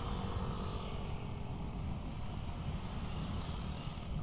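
Wind rumble on a handlebar-mounted action camera's microphone, mixed with road and engine noise from a Yamaha NMAX 155 scooter cruising steadily at about 50 km/h.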